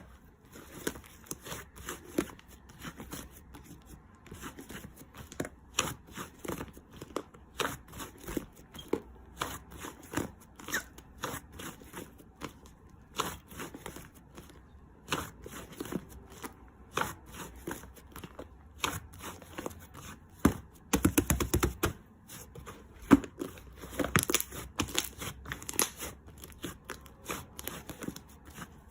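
Close-up crinkling and tearing of a handled crinkly material: a steady run of short, irregular crackles and clicks, with a denser, louder stretch about three quarters of the way through.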